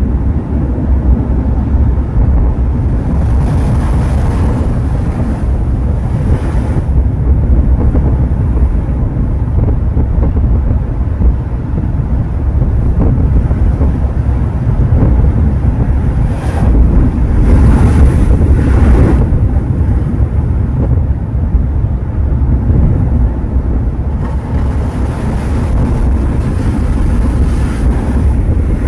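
Sea waves breaking and washing up the shore, three surges of surf hiss rising and falling over the stretch, under heavy wind rumbling on the microphone.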